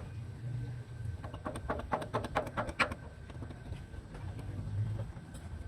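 A quick run of about ten sharp clicks or taps, roughly six a second, getting louder toward the end, over a low steady hum.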